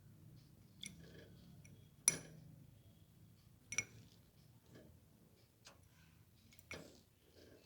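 Plum-headed parrot making short, sharp clicks, five or six spaced irregularly a second or two apart, the loudest about two seconds in.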